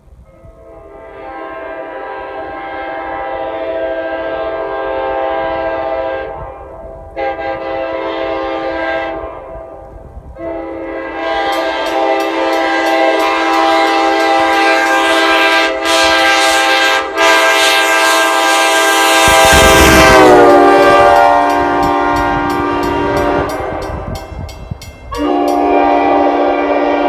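Nathan Airchime K5LA five-chime locomotive horn, with bells 3 and 5 reversed, sounding from a passing train in a series of blasts: a blast, a shorter one, then a long blast whose chord drops in pitch about 20 seconds in as the locomotive goes by with a rumble, then another blast near the end.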